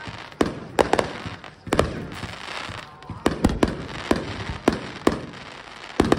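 Aerial fireworks bursting in quick succession: about a dozen sharp bangs, some in close pairs and triples, with a crackling hiss between them.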